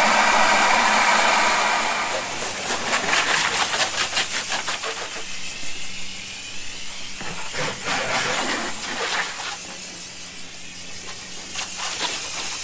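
Water from a garden hose pouring into a plastic bucket, a steady loud gush for the first couple of seconds, then the hose water splashing and spattering unevenly onto the pavement.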